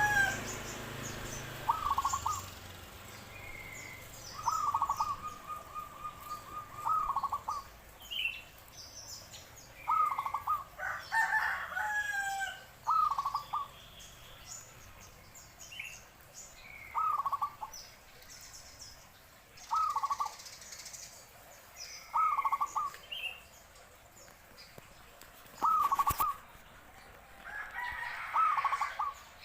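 A kept bird calling over and over: short rattling calls repeated every two to three seconds, with fainter high chirps in between. A single sharp click about twenty-six seconds in.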